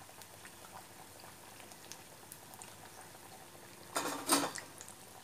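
Egg bondas deep-frying in hot oil in a steel kadai: a soft, steady sizzle with scattered small crackles. About four seconds in comes a short, loud double clatter of the steel slotted spoon against the wire-mesh strainer as a fried bonda is tipped out.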